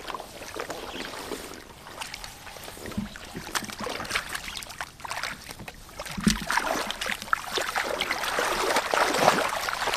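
Hands digging and sloshing through shallow muddy water and soft mud, with many small splashes and drips. It gets busier and louder in the second half.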